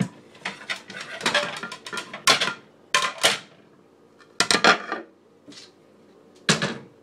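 Dishes and utensils clinking and knocking in a string of short, sharp clatters as a plate is got out of a kitchen cupboard.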